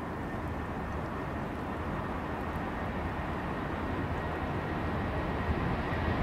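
Boeing 747's four jet engines at takeoff thrust during the takeoff roll, a steady rushing roar that slowly grows louder as the aircraft approaches.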